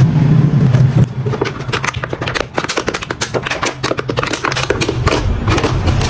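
Plastic clicking, scraping and crinkling at a front-loading washing machine's drain-filter hatch, where the drain hose is pulled out and a cut plastic bottle is held under it to catch the water. A dense run of small clicks starts about a second in, after a steady low hum.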